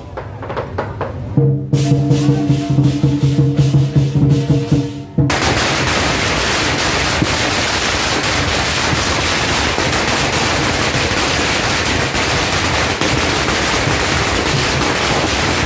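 Lion dance percussion rings for about five seconds. Then a long string of firecrackers goes off in a dense, unbroken crackle that covers everything else.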